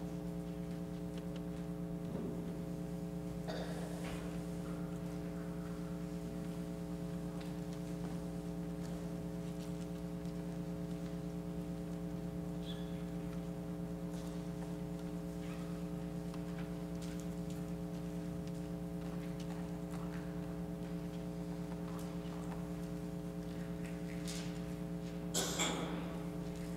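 Steady electrical hum: a low buzzing tone with a stack of evenly spaced overtones that never changes. A short faint rustle comes a few seconds in, and a louder brief rustle or shuffle comes near the end.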